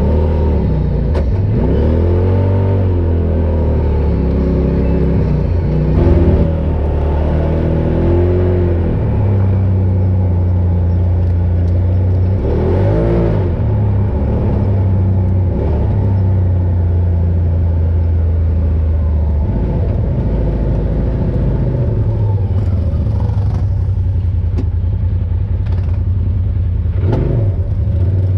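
Polaris RZR Pro XP side-by-side's engine running under way off-road, revving up and easing off again and again, with a brief louder burst about six seconds in.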